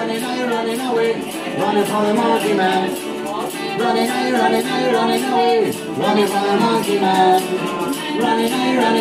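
Acoustic band playing a ska song live, with ukulele and acoustic guitars strumming and voices singing. A steady high rattling rhythm keeps the beat.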